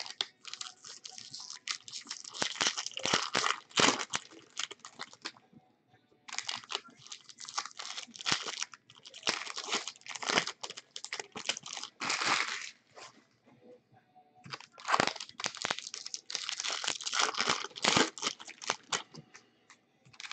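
Foil wrappers of jumbo baseball card packs crinkling and tearing as the packs are ripped open and handled, in three spells of several seconds each with short pauses between.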